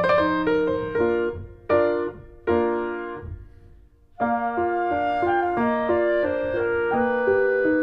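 Background piano music playing a gentle melody with chords. About two seconds in, a phrase ends on two chords that die away almost to silence, and a new phrase begins about four seconds in.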